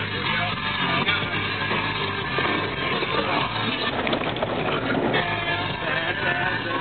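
Rock music playing steadily, with a rougher, noisier stretch underneath from about two and a half to five seconds in.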